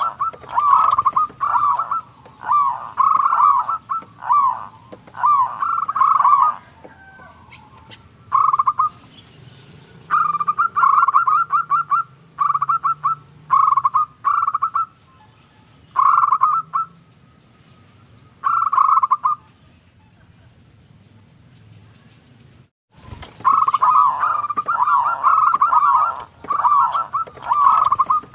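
Zebra dove (perkutut) cooing in repeated short, warbling phrases. The phrases come thick and fast at first, thin out into single phrases with a pause of a few seconds past the middle, and resume densely after a sudden break near the end.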